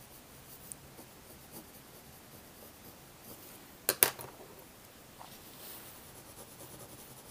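Faint scratching of a coloured pencil shading on paper. About four seconds in comes a single sharp click, a pencil being put down on the cutting mat as it is swapped for another.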